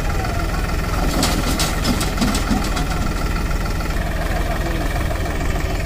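Powertrac tractor's diesel engine idling steadily, with a run of sharp metallic clicks and rattles between about one and three seconds in.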